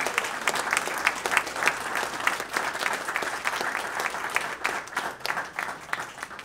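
A roomful of people applauding, the clapping thinning out and fading near the end.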